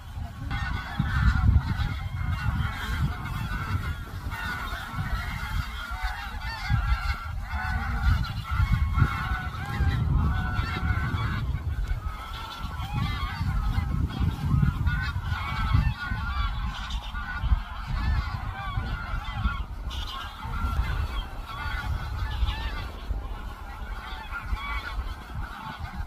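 A large flock of wild geese calling, with many honking calls overlapping continuously, over a steady low rumble.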